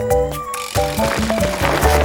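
Cartoon background music: a bouncy melody of short stepping notes over a pulsing bass. It drops out briefly about half a second in, then comes back with a noisy wash over it.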